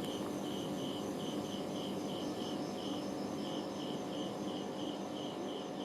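Cricket chirping in even pulses, about two to three a second, over a faint steady hum.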